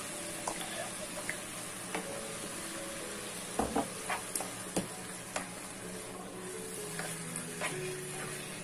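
Spatula stirring and scraping minced meat and tomato sauce in a sizzling pot, with a series of sharp knocks of the spatula against the pot and jar, the loudest cluster a little before halfway.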